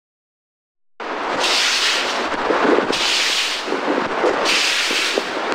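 Broom sweeping snow on a pavement: about three swishing strokes, roughly a second and a half apart, over a steady outdoor rumble. The sound cuts in abruptly about a second in.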